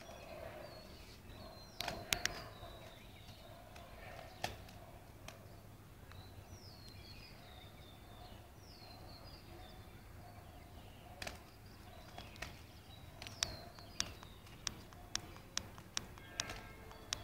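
Faint outdoor ambience with small birds calling in short, high, falling chirps now and then, and sharp clicks or taps: a few early on, then a quicker series of them from about two-thirds of the way through.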